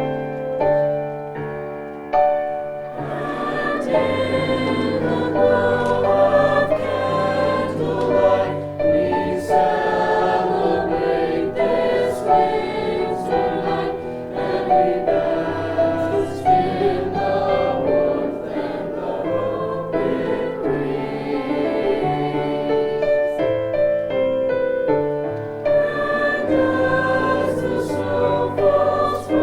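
High school choir singing a Christmas choral piece, with sustained chords over a steady low bass line.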